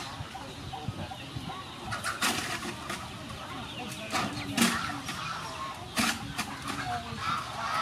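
Chickens clucking, with a few sharp scrapes and knocks of shovels working soil into a metal wheelbarrow.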